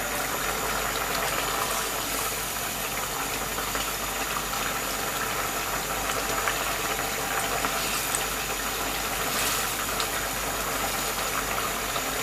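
Thick spiced curry gravy with hilsa fish roe bubbling at a simmer in a pot while a wooden spatula stirs it, over a steady hiss, with a few faint clicks.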